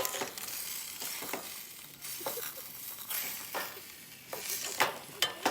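Food sizzling in a frying pan, a steady hiss broken by a few sharp clicks or scrapes, like a utensil stirring the pan.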